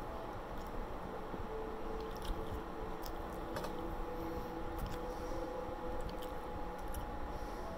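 A person chewing soft food (rice, cabbage and ham) close to the microphone, with faint wet mouth clicks scattered through it.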